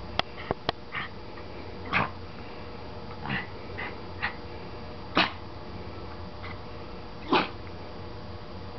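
Bichon dog sneezing: a string of short, sharp sneezes, the loudest about two, five and seven seconds in, after three quick clicks at the start.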